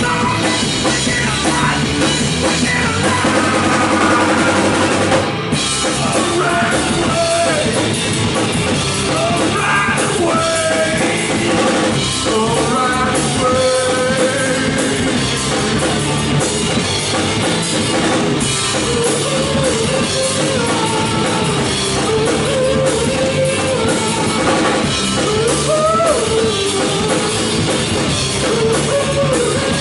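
Rock band playing live and loud, the drum kit prominent under a wavering melodic line, with a short drop in level about five seconds in.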